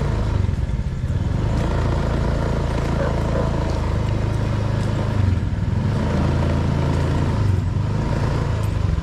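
Small motorcycle engine running steadily at low riding speed, a low even hum with a thin steady whine above it.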